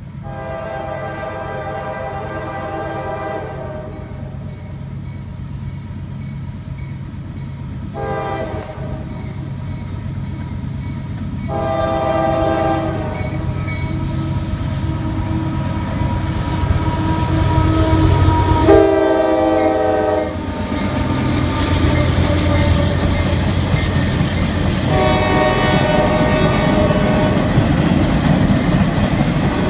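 Approaching diesel freight locomotive sounding its air horn five times for a grade crossing: a long blast, a short one, two more long ones and a final long one. Under the blasts the locomotive's engine rumble grows louder, and near the end the freight cars roll past with wheel clatter.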